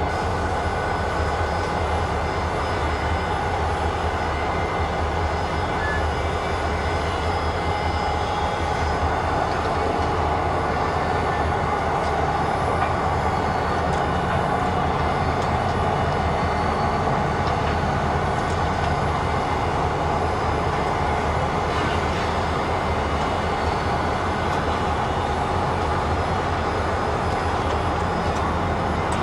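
Steady rumble and hiss with faint steady tones from the Milwaukee Road 261 steam locomotive at rest while it is turned on a turntable, unbroken throughout.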